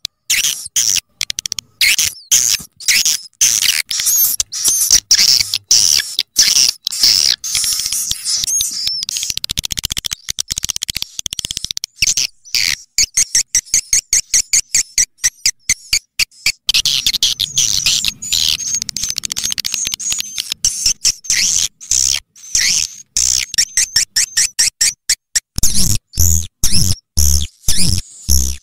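Swiftlet lure call track (suara panggil walet): edible-nest swiftlet chirps and twitters, high-pitched and rapid, cut into quick choppy bursts with abrupt gaps. It is meant to be played through tweeters to draw swiftlets to a nesting house. A few low thuds come near the end.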